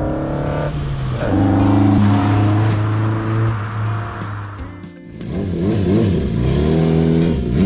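A car engine revving, mixed with background music. Its pitch holds steady, then shifts in steps, and it dips briefly about five seconds in before coming back with a rising and falling pitch.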